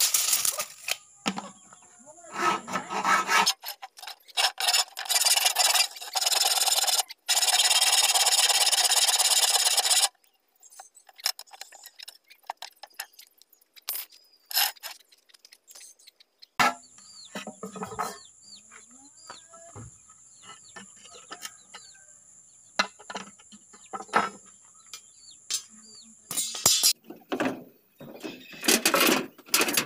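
Steel rebar being worked by hand: long bursts of harsh rasping metal noise over roughly the first ten seconds, then scattered clinks and taps.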